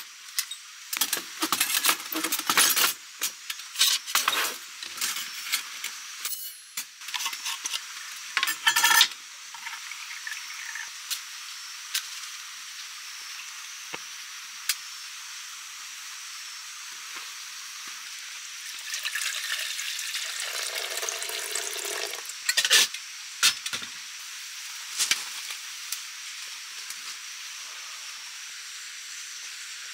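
Metal clinks and knocks of a Bushbox LF folding pocket stove being unfolded and assembled, a dense run in the first nine seconds. After that a steady faint hiss, with a few more metal clinks of pot and cookware later on.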